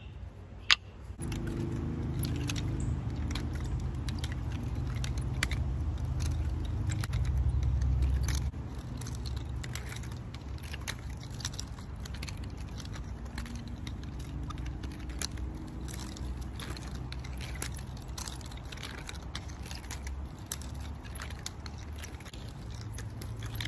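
Nunchucks being swung and spun, giving scattered sharp clicks and rattles, over a steady low rumble that sets in about a second in.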